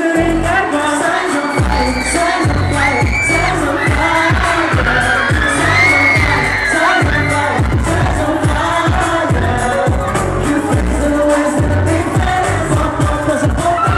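A boy band singing pop live into handheld microphones over music with a steady beat.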